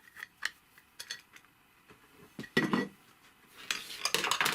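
Screws and a cover being taken off an industrial sewing machine: scattered light metal clicks, then two louder clattering, scraping rattles in the second half as the cover comes away.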